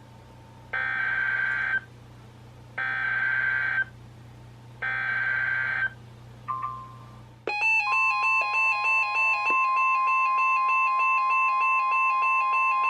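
NOAA Weather Radio Emergency Alert System data signal: three buzzing SAME header bursts about a second long, a second apart. A short beep follows, and then about seven seconds in the 1050 Hz warning alarm tone starts together with several weather radios' pulsing alert beeps, announcing a flood warning.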